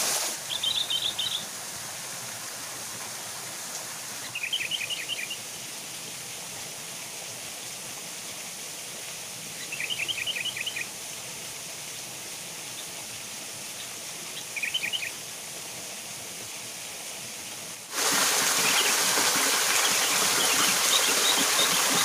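Steady rush of a small waterfall and stream, with a small bird singing a short quick trill four times, roughly every five seconds. Near the end the rushing becomes abruptly louder.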